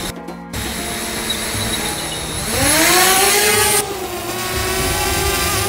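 DJI Spark quadcopter drone's motors and propellers spinning up for takeoff: a rising whine about two and a half seconds in, with a loud rush of air for about a second, settling into a steady hovering buzz.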